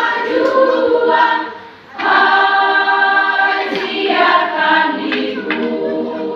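Church choir singing, with a short pause about a second and a half in before the voices come back in together.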